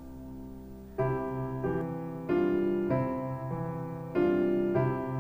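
Background piano music: slow held chords, a new one struck every second or so.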